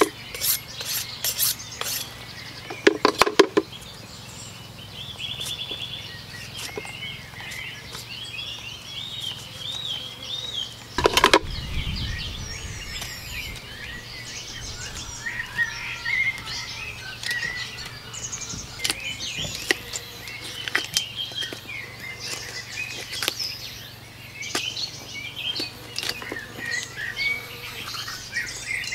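Small birds chirping and twittering continuously, over a faint steady low hum, with scattered small clicks and one dull thump about eleven seconds in.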